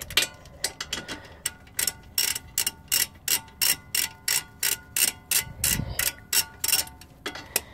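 Hand socket ratchet clicking in a steady rhythm, about three clicks a second, as a brake caliper bolt is wound in.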